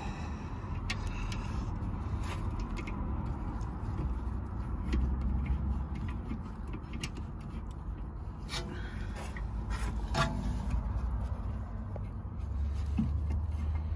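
Scattered light metallic clicks and scrapes as a rear brake caliper and pads are handled into place, over a steady low rumble.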